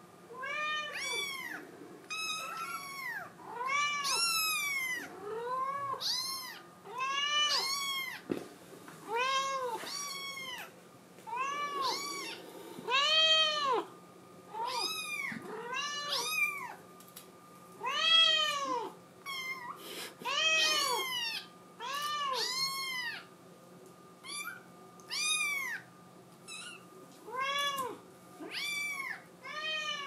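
Kitten meowing over and over, short high calls that each rise and fall in pitch, roughly one a second: crying to be let out of its playpen.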